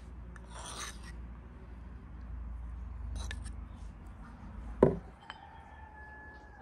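A metal spoon scraping thick tomato paste into a small bowl of oil, in short rasps, with one sharp knock about five seconds in.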